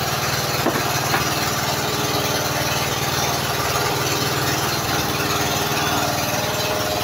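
A small engine on the fishing boat running steadily at an even speed, a constant chugging drone.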